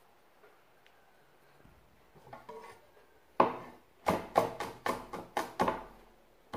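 A cleaver chopping garlic on a wooden cutting board: after a quiet start, one hard knock about three and a half seconds in, then a quick run of chops at about three or four a second.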